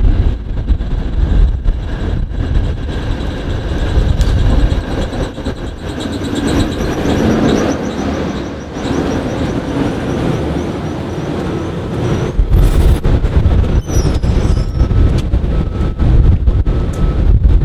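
PCC streetcar approaching and passing close by on its rails, with a faint high whine as it goes past, then coming to a stop. Heavy low rumbling near the end.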